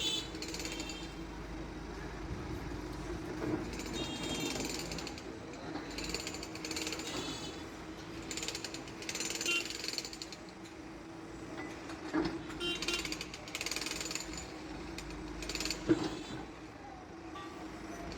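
Case 770 EX backhoe loader working: its diesel engine runs steadily under recurring bursts of metallic rattling and squeaking from the moving arm and bucket. Two sharp knocks come about 12 and 16 seconds in.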